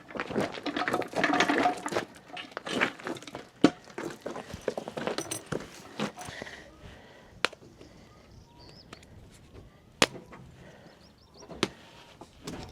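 Rustling and clattering handling noise for the first few seconds, then scattered single sharp knocks and clicks, the sharpest about ten seconds in.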